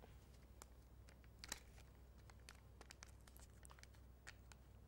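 Near silence, with faint scattered ticks and rustles of a glue stick being rubbed on a thin paper strip and the strip being handled.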